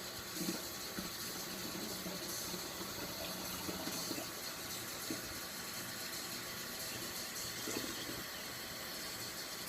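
Water running and filling a container, a steady hiss with a few brief gurgles.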